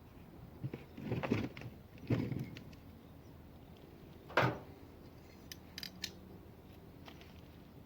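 Short scraping and clattering handling sounds, with one sharp knock about four seconds in, then a few light clicks.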